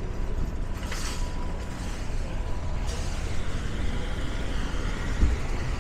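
Outdoor road-traffic noise: a steady low rumble of vehicles, with a short hiss about a second in and a longer hiss from about three seconds in.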